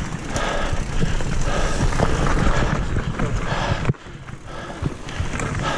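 Rattling and crunching of a mountain bike moving over a rough dirt forest trail, heard through a camera mounted on the handlebars. The noise drops off sharply about four seconds in, then builds again.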